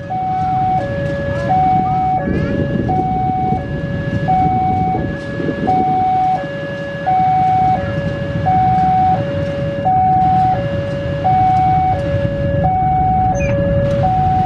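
A railway level-crossing warning alarm sounds as a steady two-tone hi-lo signal, switching between a higher and a lower tone about every three-quarters of a second. Under it is the low, steady engine rumble of a CC201 diesel-electric locomotive running through the station.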